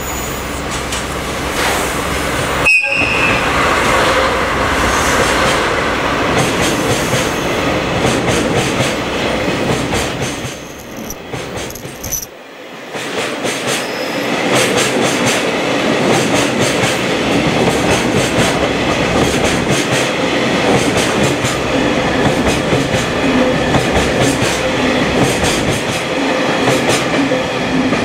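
JR Freight DD51 diesel-hydraulic locomotive passing close by, hauling a long string of Taki tank wagons that roll past with their wheels clicking over the rail joints.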